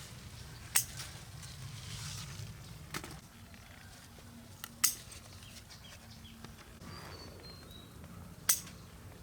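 Four sharp clicks a few seconds apart over a low steady rumble, with a faint short bird chirp a little after the third click.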